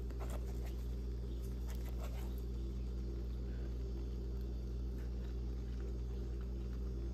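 Faint eating sounds, soft clicks and mouth smacks from chewing noodles, mostly in the first couple of seconds, over a steady low electrical hum.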